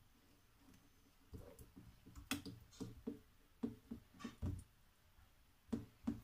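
Faint, irregular clicks and light taps of a spoon against a steel plate as pizza sauce is spread over the dough, starting about a second in.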